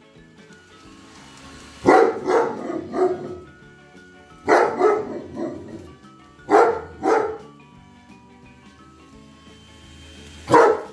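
Large dogs barking in bursts of a few deep woofs each, about every two seconds and a single one near the end, alarmed by a deflating inflatable snowman. Background music plays softly underneath.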